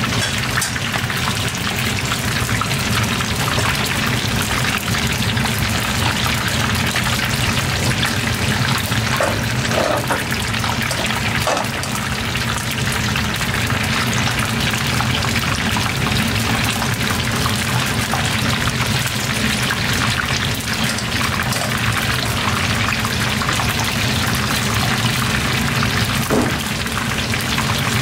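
Corn fritters deep-frying in hot oil, sizzling and bubbling steadily, over a steady low hum.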